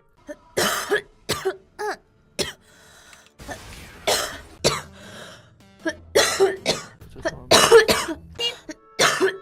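A young woman coughing repeatedly in clusters of short coughs, with throat clearing and breaths between them; the hardest coughs come near the end.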